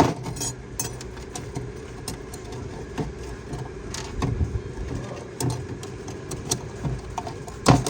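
A steady engine-like hum with scattered short clicks and knocks.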